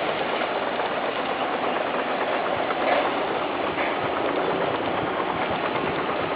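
Steady engine and vehicle noise, an even rumble with no clear rhythm or change.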